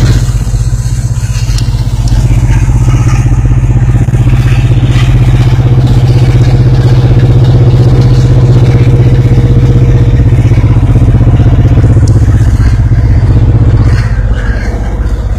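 Diesel locomotive engine running with a loud, steady low drone, heard from inside the cab of a distributed power unit (DPU) on a moving freight train. The level drops slightly near the end.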